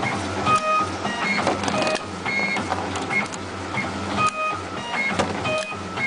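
Automatic wire cutting and stripping machine running its cycle on stranded copper wire. Its motors feed with short whining tones and a low hum, broken by sharp clicks from the cutting and stripping blades, over and over.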